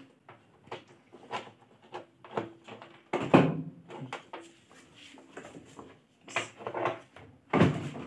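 Plastic lint filter being fitted onto the wall of a top-loading washing machine's perforated drum: a series of short plastic clicks and knocks, the loudest about three seconds in.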